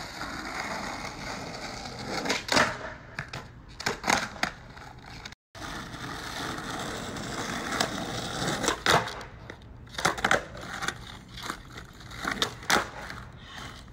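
Skateboard wheels rolling over asphalt with a steady rolling noise, broken several times by sharp clacks of the board popping and landing. The sound cuts out for a moment about five seconds in.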